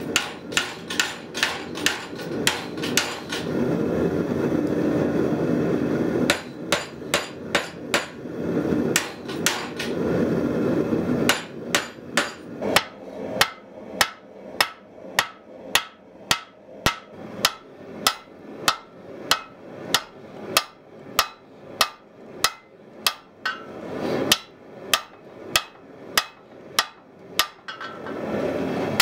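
Hand hammer striking red-hot truck spring steel on a swage block as it is forged into a tomahawk head: sharp ringing blows at about two a second. Between runs of blows there are short stretches of a steady low rushing noise.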